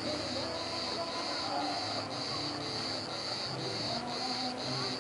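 Insects singing in a steady chorus, pulsing about twice a second, with a faint murmur underneath.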